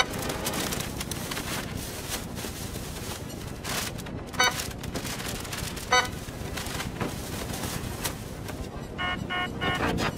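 Electronic beeps from a store checkout: a single beep about four and a half seconds in, another at six seconds, and a quick run of about four beeps near the end, over steady store background noise.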